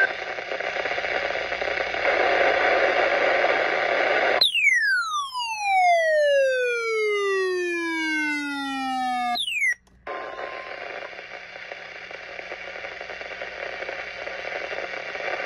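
Weather radio receiver hissing with static from a weak, distant station. About four seconds in, an electronic tone with many overtones glides steadily downward for about five seconds and cuts off abruptly. The sound drops out briefly, then the static hiss returns.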